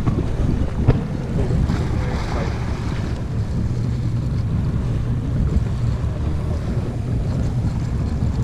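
Wind buffeting the microphone over the steady low rumble of a boat rocking in choppy sea, with a single knock about a second in.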